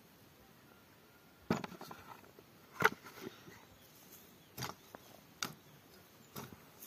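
Digging potatoes out of the soil: about five short knocks and scrapes, roughly a second apart, starting about a second and a half in, the loudest near three seconds in.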